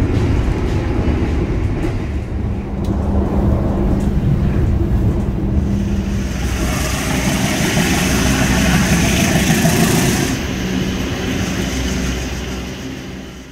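Train running on the track: a steady low rumble with a hum, joined about halfway through by a hiss for a few seconds, then fading out at the end.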